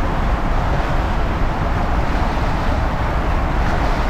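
Steady rush of water and wind blowing on the microphone as a rider's inner tube speeds down a water slide.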